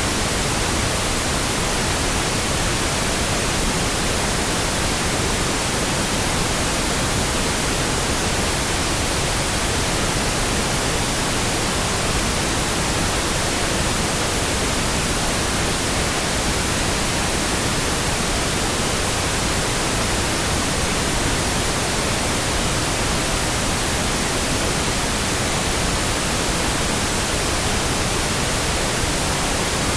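Steady synthetic pink noise: an even, unbroken hiss spread across all pitches, with no change in level.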